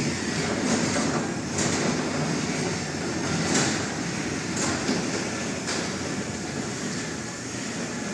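Garage door opener running, driving the door down during limit programming: a steady mechanical rumble with a light clack about once a second.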